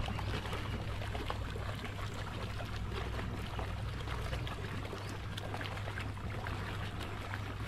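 Water churning and splashing at the surface as a large Siamese carp is held in the lake to revive it, with a steady low hum underneath.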